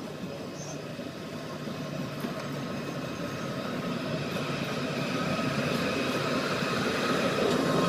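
Indian Railways WAG-9-class electric freight locomotive hauling a goods train: steady rumble of wheels on the rails with a faint steady whine, growing louder as the train approaches.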